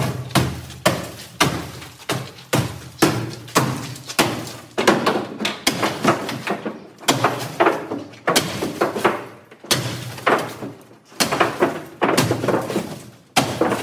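Repeated blows of a long bar on the hood and cracked windshield of a wrecked Honda Civic sedan, roughly two strikes a second. Each is a heavy thud with a short ring from the car body.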